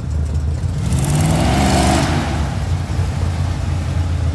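Lifted pickup truck driving past with a steady low engine rumble. The engine note swells, rising and then falling, as it passes about two seconds in, then settles back to a rumble as it pulls away.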